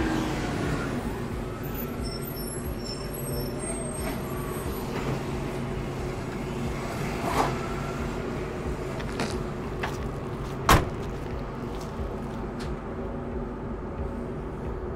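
Large transport truck's engine running steadily at low speed, a deep even hum. A few sharp clicks sound over it, and one loud sharp knock comes about two-thirds of the way through.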